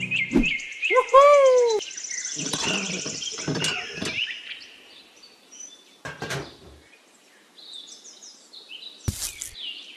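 Birds chirping and calling, several different calls including a rising-and-falling one about a second in, fading away after about five seconds; a few light clicks and taps later on.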